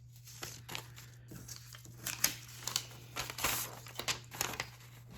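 A freshly sharpened multitool knife blade slicing through paper: a run of short, crisp crinkling and tearing rasps, denser and louder from about two seconds in.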